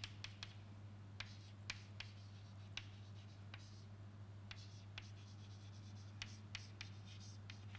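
Chalk writing on a chalkboard: faint, irregular taps and short scratches as the strokes of letters go down, over a steady low hum.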